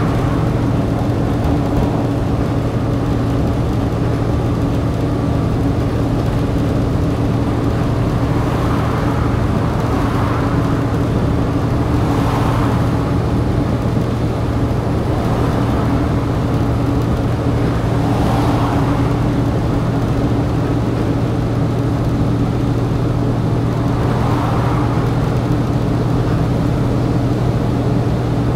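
Volvo B7TL double-decker bus's six-cylinder diesel engine running steadily, heard from inside the saloon: a constant low drone, with a few brief swells of higher noise.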